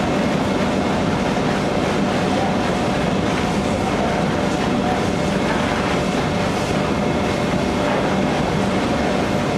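Steady machinery noise of a running horizontal powder coating line, its overhead conveyor carrying aluminium profiles. The noise is even and continuous, with a faint low hum.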